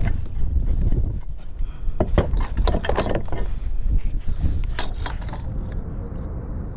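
Irregular knocks, clicks and rubbing from fishing gear being handled aboard a plastic kayak, over a steady low rumble. The handling noises stop about five and a half seconds in.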